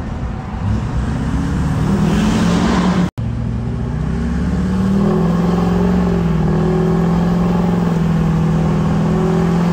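LLY Duramax 6.6-litre V8 turbo-diesel with a straight-piped 5-inch exhaust, heard from inside the cab while driving. It accelerates, rising in pitch over the first two seconds or so, cuts out for an instant about three seconds in, then settles into a loud, steady drone at cruising speed.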